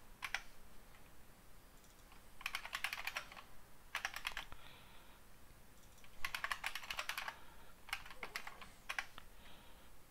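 Typing on a computer keyboard: short runs of rapid key clicks in about four bursts, separated by pauses, the first coming a couple of seconds in.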